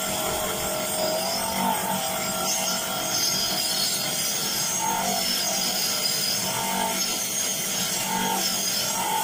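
Bench grinder running with its polishing wheel grinding against an aluminium engine case pressed onto it by hand: a steady rasping rub over the motor's hum, whose pitch sags and recovers every second or two as the part is pushed in and eased off.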